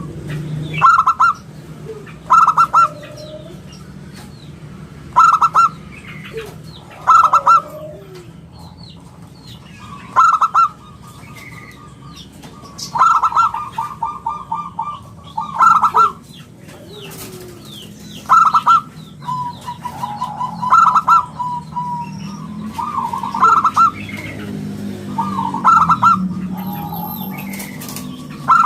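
Zebra dove (perkutut) cooing over and over: short, loud, pulsed coos about every two seconds, with a couple of longer rolling trills. A steady low hum runs underneath.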